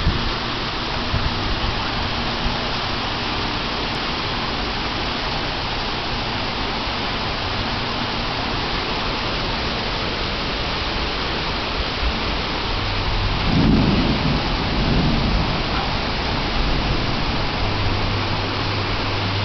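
Heavy rain pouring down steadily on a parking lot. A low rumble swells briefly about two-thirds of the way through.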